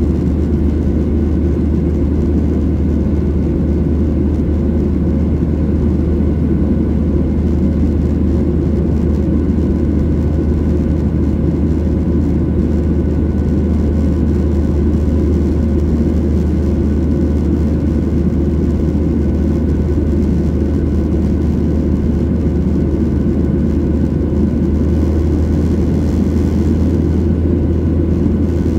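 Steady cabin drone of a Boeing 737 airliner in flight: a low engine and airflow rumble with a few faint steady hums above it.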